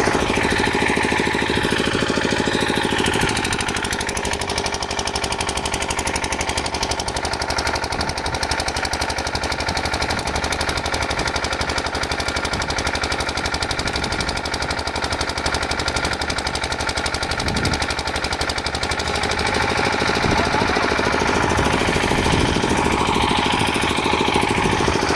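Machinery running steadily with a fast, even rattling pulse.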